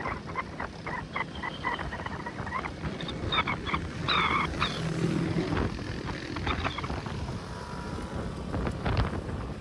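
A motorbike ride, with wind rushing over the microphone and the engine running underneath. A quick series of short high chirps sounds through the first half.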